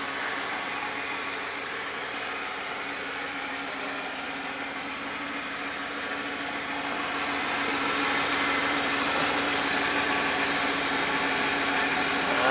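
Holden VS Commodore's 3.8-litre Ecotec V6 idling steadily, a constant hum with a steady low tone. It grows a little louder about two-thirds of the way in.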